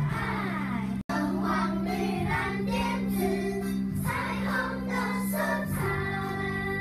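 Upbeat children's song playing, sung vocals over a backing track with a steady bass line. The sound cuts out completely for an instant about a second in.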